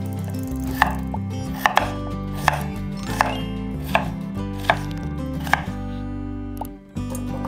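Santoku-style kitchen knife chopping peeled raw potatoes on a wooden cutting board: about eight sharp knocks of the blade on the board, roughly one every three-quarters of a second, stopping shortly before the end.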